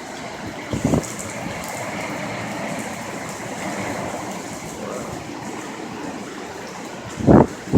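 Hurricane wind and rain making a steady rushing noise, with two short thumps, about a second in and again near the end.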